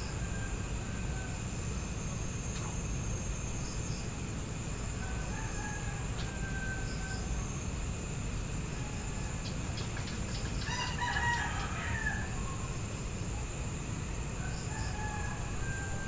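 Evening outdoor ambience: steady high-pitched insect chirring over a low rumble, with short bird calls repeating every few seconds and one louder, longer call about eleven seconds in.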